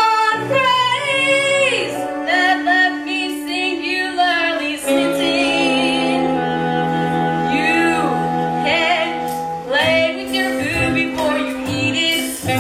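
A song from a stage musical: a voice singing with vibrato over a steady instrumental backing track.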